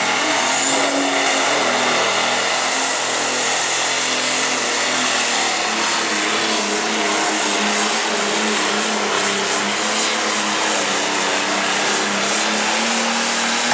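Light Pro Stock pulling tractor's turbocharged diesel engine running flat out under heavy load as it drags the weight-transfer sled, loud and steady.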